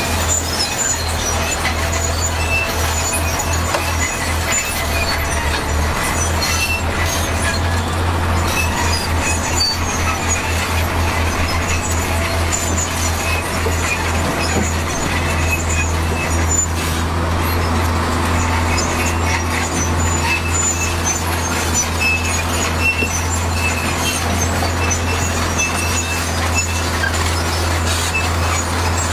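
Heavy diesel earthmoving machinery running steadily under load, with a deep engine drone and intermittent high metallic squeaks and clinks.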